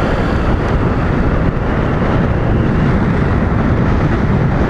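Steady rush of wind on the microphone of a moving motorcycle, with engine and road noise underneath, running evenly without a break.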